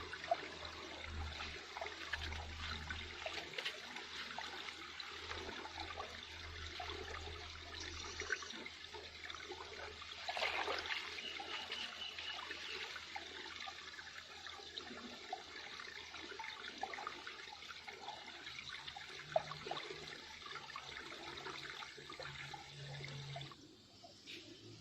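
River water running and gurgling steadily, with a dense trickling crackle; it drops away suddenly near the end.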